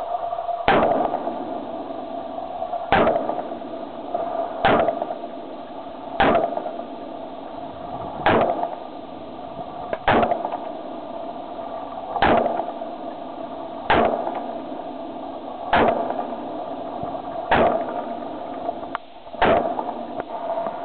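Werle M1A, a semi-automatic .308 Winchester rifle, fired one shot at a time, about eleven shots roughly two seconds apart, working through a 20-round magazine in a function test. A steady hum runs under the shots.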